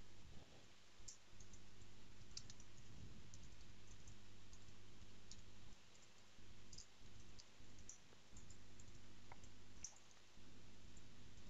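Faint computer-keyboard keystrokes: short clicks at an uneven typing pace over a low steady hum.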